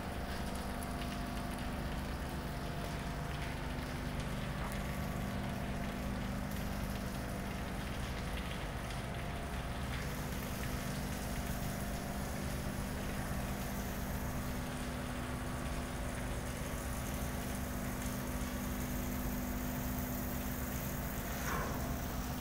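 Steady mechanical hum of running machinery: a low rumble with several steady tones held over it. A short sliding tone cuts in briefly near the end.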